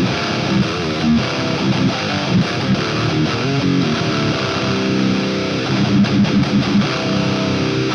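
Heavily distorted electric guitar riff played through the Grindstein HM2-style death-metal distortion plugin, a dense, saturated tone that runs without a break.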